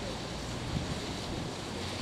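An emergency van wading through a flooded street: its wheels churn and splash the floodwater in a steady rush, over a low engine hum.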